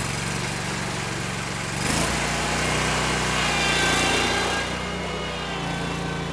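Lawn mower engine running just after starting, getting louder from about two seconds in and easing back down near the end.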